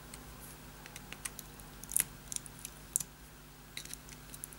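Light, scattered clicks and rustles of small parts being handled: the spare screws, stuck down with Kapton tape, being picked out of an alarm clock's case. The clearest clicks come about two and three seconds in.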